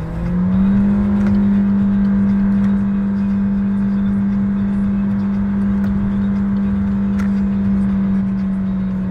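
The 2017 Toyota Yaris's 1.5-litre four-cylinder engine at full throttle through its CVT, heard from inside the cabin. The revs climb in the first half-second, then hold at one steady, high pitch near the red line while the car keeps gaining speed, the constant-rpm drone typical of a CVT under hard acceleration.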